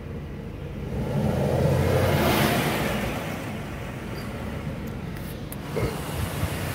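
A car drives past close by, its sound swelling and fading over a couple of seconds, heard from inside a car idling in traffic.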